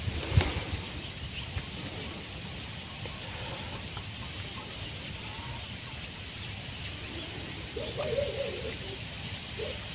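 Steady low rumble of wind on the microphone over open water. A brief faint call about eight seconds in, and a shorter one near the end.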